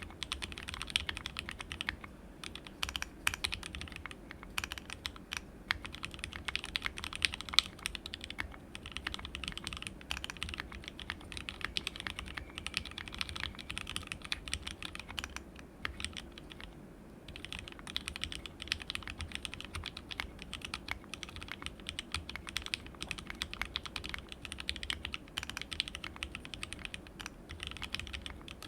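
Continuous typing on a plateless mechanical keyboard: dense, irregular keystroke clacks from 43 Studio Toy switches, lubed with 205g0 and filmed, soldered straight onto a WT60-D Weirdflex PCB in an NPKC resin case with ABS Cherry-profile keycaps. There is a brief pause in the typing about 17 seconds in.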